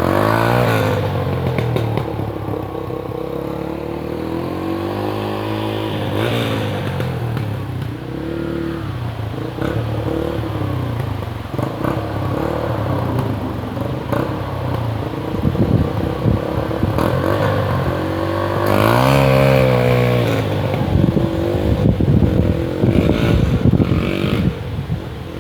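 Dirt bike engine being ridden, its pitch climbing and dropping as the throttle is opened and closed, with sharp revs about a second in, around six seconds and again past the midpoint. Irregular knocks and rattles over the last few seconds.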